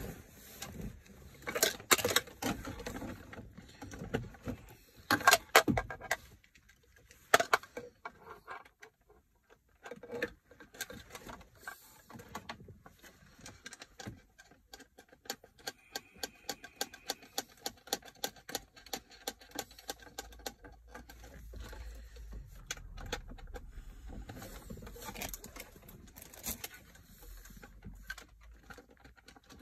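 Plastic clicks, knocks and rattles from handling an aftermarket 10-inch Android head-unit screen and its wiring connectors against the dash trim. A few louder knocks come in the first seven seconds, followed by a long run of fine, rapid ticking.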